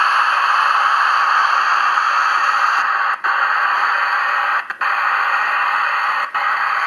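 Steady hiss from the sound decoder of a Bachmann B1 class OO gauge model steam locomotive as it runs. The sound cuts out for an instant three times.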